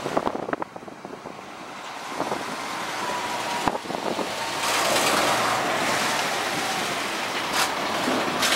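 Jet airliner flying over: a broad rushing roar that swells over several seconds, peaks about halfway through and eases off a little, with wind buffeting the microphone.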